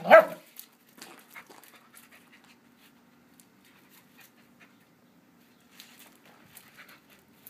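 Two dogs playing: one short, loud dog cry right at the start, then only faint scuffling and clicks of paws on gravel while they mouth at each other.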